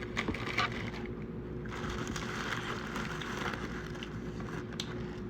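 Crunching and chewing of crispy fried chicken, strongest for a couple of seconds in the middle, with a few small clicks and a steady low hum underneath.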